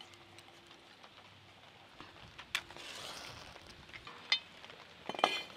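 Quiet, with a few light clicks of metal cooking utensils being handled, and near the end a short run of clinks with a brief metallic ring.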